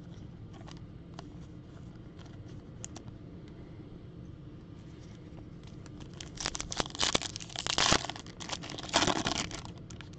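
Plastic foil wrapper of a Topps Chrome baseball card pack being crinkled and torn open by hand, in loud crackling bursts from about six seconds in and again about three seconds later. Before that only faint light ticks.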